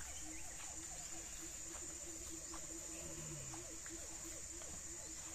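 Tropical forest insect chorus: a steady high-pitched drone, with a rapid low pulsing call and many short chirps over it.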